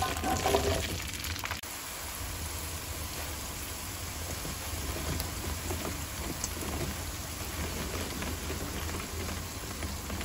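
Garlic cloves and green chillies sizzling in hot oil in a wok: a steady crackling hiss, louder in the first second.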